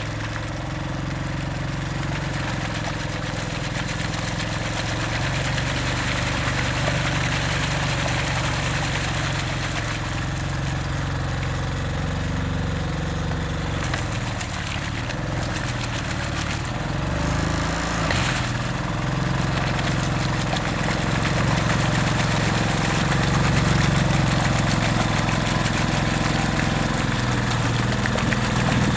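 Engine of a six-wheel-drive Argo amphibious ATV running steadily as it drives through mud and water on chained tires, growing somewhat louder in the second half.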